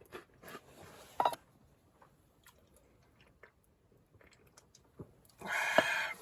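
A person chewing and biting food: small scattered mouth clicks, with a louder, denser burst near the end.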